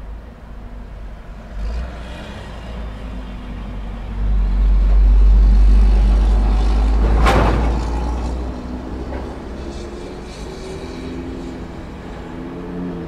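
Road traffic at a busy intersection: a vehicle with a deep rumble passes close, loudest from about four to eight seconds in, with a brief sharp rush about seven seconds in. Afterward the engines of other vehicles keep running at a steady pitch.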